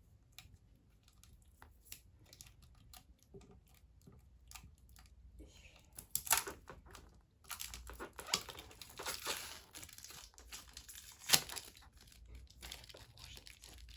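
Plastic packaging crinkling and rustling in short bursts, with scattered small clicks, louder stretches about six and eight to ten seconds in, and one sharp knock about eleven seconds in.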